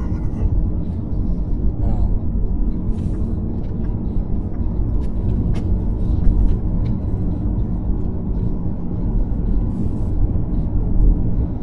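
Car driving on a highway, heard from inside: a steady low rumble of road and engine noise, with a few light clicks.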